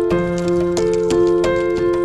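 Background music: held melodic notes over a steady, clicking percussive beat.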